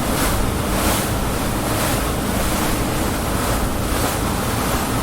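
Motorboat running steadily under a deep engine hum, with water rushing past that surges about once a second.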